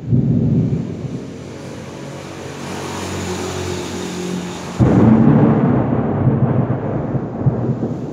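Thunder before rain: a sudden clap opens into a deep rumble that slowly eases, then a second loud rumble breaks out abruptly about five seconds in and keeps rolling.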